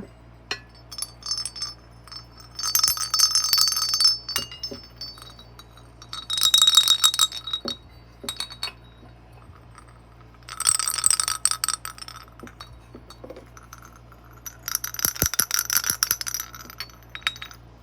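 Handmade clay jingle bells shaken in four separate bursts of bright, high jingling, with small clinks between the bursts. The bells are tried one after another for how well they ring.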